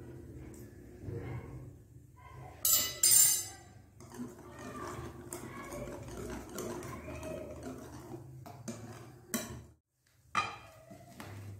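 Wire whisk beating batter in a glass mixing bowl, a busy wet scraping, with two loud ringing clinks of metal on glass about three seconds in. Near the end, after a brief break, a sharp clink of glass as apple pieces are tipped from a glass bowl into the batter.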